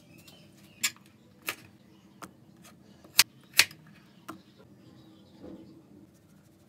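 A handful of sharp, irregular clicks and taps of kitchen items being handled, two close together a little past the middle being the loudest, over a faint steady low hum.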